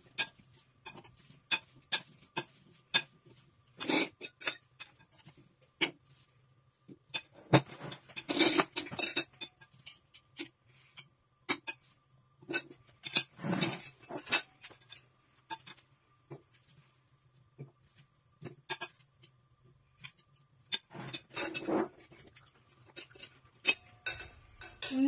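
Spoons and forks clinking and tapping against a glass bowl and plates as fruit salad is stirred, served and eaten: irregular sharp clinks, some in quick clusters.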